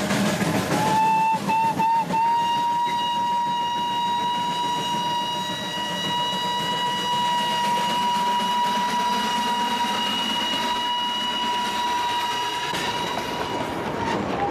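Darjeeling Himalayan Railway steam locomotive's whistle: a short blast and two quick toots, then one long steady blast of about eleven seconds, over the noise of the running train.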